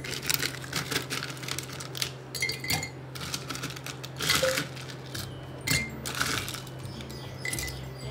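Ice cubes dropped by hand one at a time into a glass pitcher of sharbat, clinking against the glass and each other; several of the clinks leave a short, high ring.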